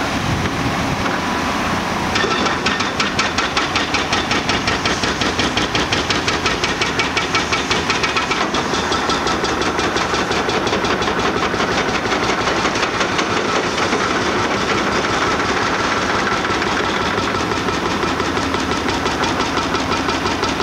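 Cat diesel engine and hydraulics of a 320-ton demolition excavator running under load as it swings and raises its boom, with a hiss over the engine note. A fast, even pulsing comes in about two seconds in.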